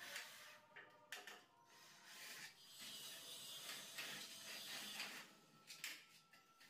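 Cordless drill driving screws through PVC ceiling panels into the metal ceiling frame, heard faintly as a few short grinding bursts and a longer run in the middle.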